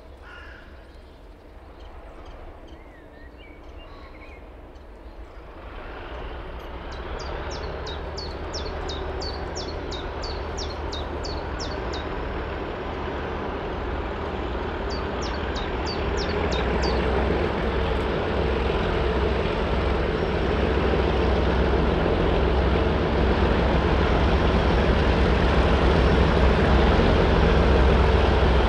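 A diesel train approaching, its engine hum and running noise growing steadily louder from a few seconds in.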